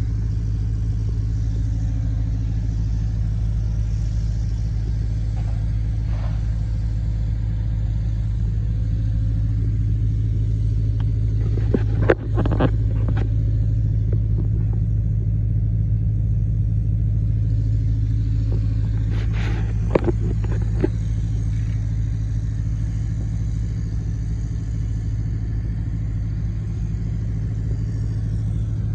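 Kubota L2900 tractor's three-cylinder diesel engine idling steadily. A few sharp knocks come through about twelve seconds in and again about twenty seconds in.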